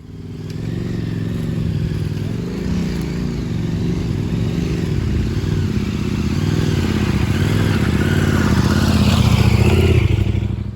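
Adventure motorcycle engine running under way, its pitch rising and falling with the throttle. It builds up over the first second or two and is loudest near the end.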